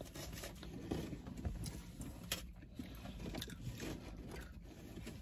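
Quiet eating sounds: chewing, with scattered light clicks and rustles from food containers and utensils, over a low steady hum.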